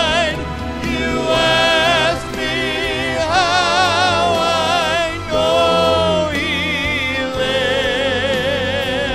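Gospel song: a singer holds a string of long notes with wide vibrato over instrumental accompaniment.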